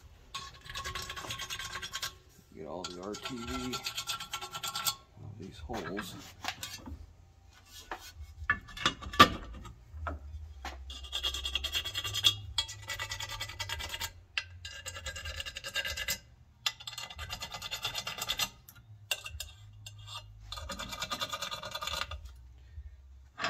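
Hand scraping along the sealing flange of a steel Jeep rear differential cover held in a vise, in a run of rasping strokes a second or two long with short pauses between them. There is a sharp metallic clank about nine seconds in. This is old RTV sealant and rust being cleaned off the flange so it sits flat for new RTV.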